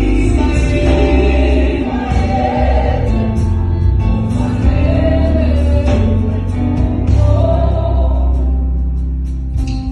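Live gospel praise team singing together in harmony into microphones, backed by a band with drums and keyboards, amplified through stage speakers.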